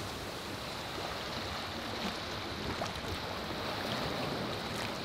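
Steady sea ambience: an even wash of water and light wind, with no distinct events.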